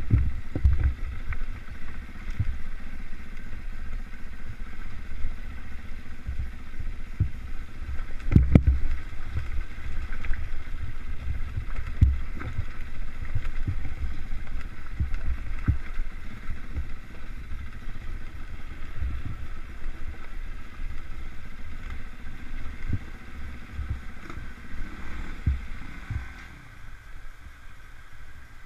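KTM trail bike engine running while riding over a rough, stony track, with wind buffeting the microphone and repeated thumps and knocks as the wheels hit rocks. Near the end the rumble and buffeting drop away as the bike eases off.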